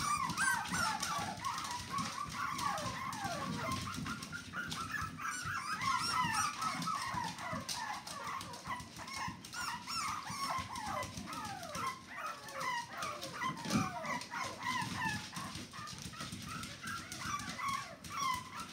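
A litter of young puppies whimpering and squealing: many short, high cries that overlap without a break, most of them falling in pitch.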